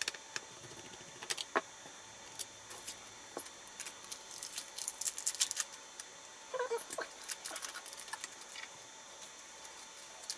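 Light clicks, ticks and small metallic rattles of screws and hand tools being handled on a laptop repair bench, coming in scattered bunches that are busiest in the middle.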